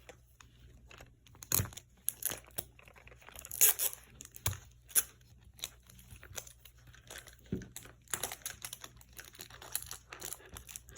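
Plastic wrapping of a Mini Brands capsule ball being torn open and crinkled by hand in short, irregular crackles and clicks.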